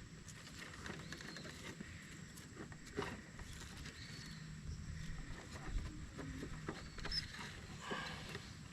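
Faint rustling and scattered clicks of hands at work, with a few short bird chirps and a steady high insect tone behind.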